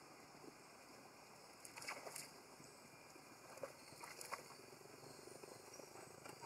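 Long-tailed macaques splashing in shallow water: faint splashes in two short clusters, about two and about four seconds in.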